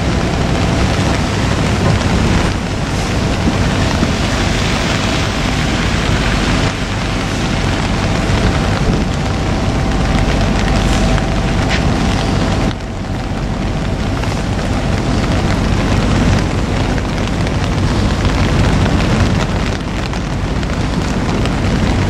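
Kobelco hydraulic excavator running at a demolition site, its engine rumbling under a steady wash of rain and wind noise. A steady hum runs over it and stops about 13 seconds in, where the sound drops slightly.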